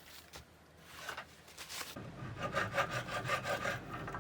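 Rasping back-and-forth hand strokes of abrading a surface, roughing it up so glue will stick; they start about two seconds in and repeat at roughly four strokes a second, after a few faint strokes.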